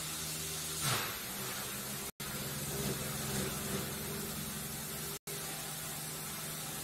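Small electric propeller motors on a variable-pitch rotor pendulum rig running with a steady whirring hum and airy hiss. There is one brief knock about a second in, and the sound drops out twice for a moment.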